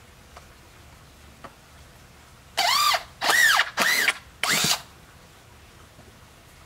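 Power drill run in four short bursts, its motor whining up and back down each time. It is backing screws out of the wooden formwork around a freshly poured concrete slab.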